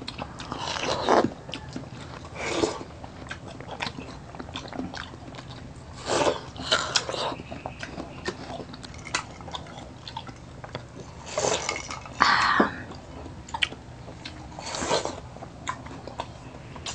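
Two people biting into and chewing slices of watermelon close to a lapel microphone: irregular bites and bouts of chewing a few seconds apart, with small mouth clicks in between.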